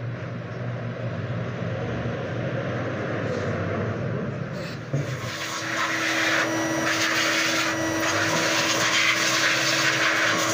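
Steady whooshing motor noise, growing louder about five seconds in, when a steady hum joins it.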